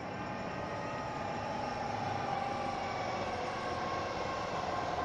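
N.E.G. electronic railroad crossing bells ringing steadily as the crossing gate arms rise at the end of the activation, over a steady low rumble.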